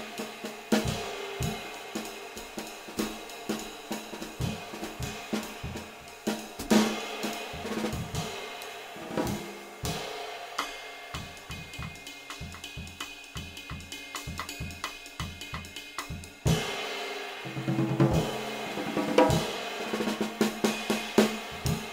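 Hayden Custom 22-inch Ride III Series ride cymbal (2308 g, fitted with two brass rivets) played with a wooden drumstick in a steady ride pattern, ringing and washing between strokes. Snare drum and bass drum strokes run under it as a drum kit groove, with a heavier accent about two-thirds of the way through.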